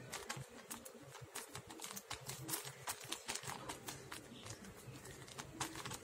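Fingers patting a ball of athirasam (rice-flour and jaggery) dough flat on an oiled plastic sheet: soft, irregular taps with light crackling of the plastic.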